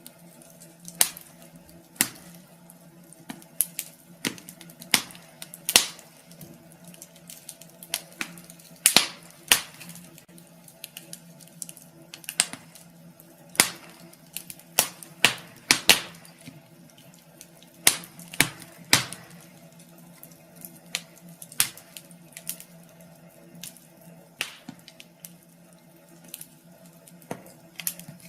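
Wood fire crackling in a fireplace: irregular sharp pops and snaps, some loud and some faint, over a faint steady low hum.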